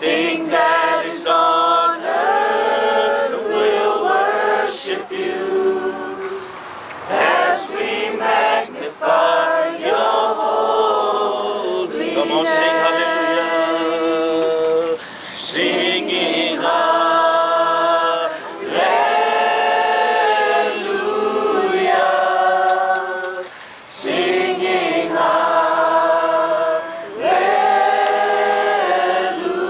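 A group of people singing a worship song together, unaccompanied, in long held phrases with short breaths between them.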